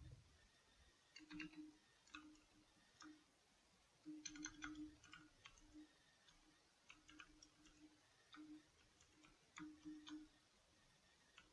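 Faint computer keyboard typing: short, irregular key clicks in small clusters with brief pauses between them.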